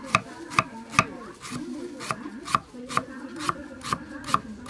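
Cleaver chopping on a wooden chopping block: about ten sharp knocks, a little over two a second, as the blade slices through food and strikes the board.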